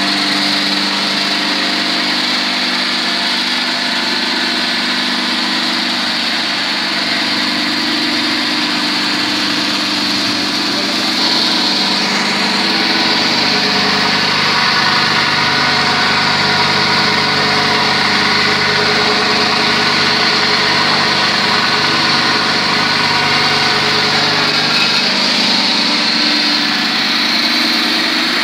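Electric stainless-steel onion grinding machine running steadily, a constant motor whine and hum, a little louder from about eleven seconds in.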